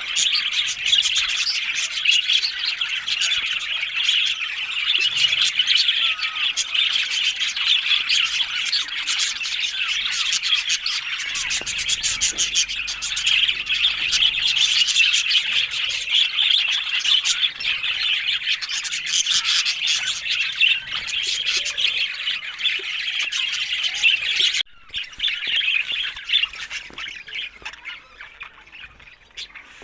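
Several budgerigars chattering and warbling without pause, a dense mix of squawks and chirps. It drops abruptly to quieter chatter about five seconds before the end.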